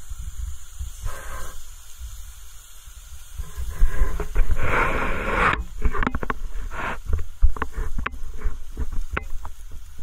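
Sliced pork belly sizzling on a hot grill pan, with a burst of loud hissing about halfway through, then a run of sharp crackles and pops.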